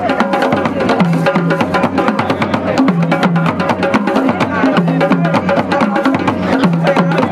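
Several rope-tuned drums played together by a group in a fast, steady, driving rhythm, with a repeating low drum pattern under dense sharp strokes.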